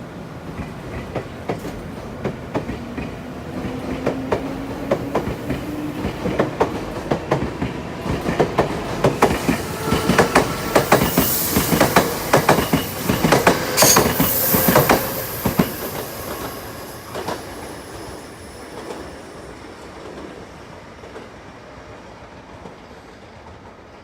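Nankai electric train running along the platform, its motor whine rising in pitch over the first few seconds. The clatter of its wheels over the rail joints grows quicker and louder, peaks about halfway through, then fades as the train moves away.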